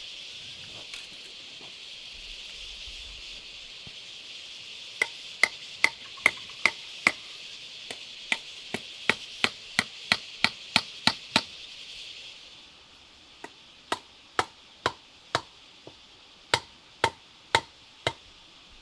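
Sharp, rhythmic strikes of a hand tool on wood or bamboo, about two or three a second, in two runs with a short break between. A steady high hiss lies behind the first run and drops away about twelve seconds in.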